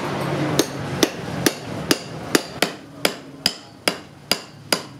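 Hammer blows on a metal chisel set against the lead terminal post of an old car battery, about two strikes a second in an even rhythm, each with a short metallic ring.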